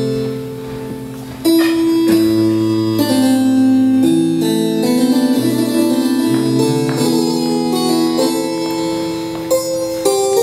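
Instrumental keyboard music: held notes and chords changing about every second over a moving bass line, soft at first and coming in louder after about a second and a half.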